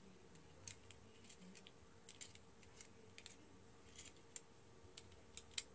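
Faint, scattered small plastic clicks from fingers working a model railroad crane car's boom and hook, irregular over a few seconds, with a sharper pair near the end.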